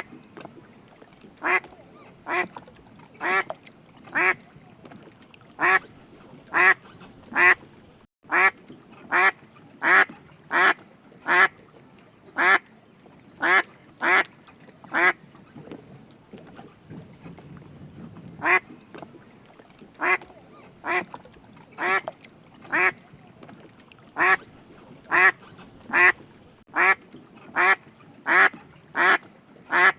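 A duck quacking over and over: short single quacks in an uneven series, pausing for a few seconds about halfway through before starting again.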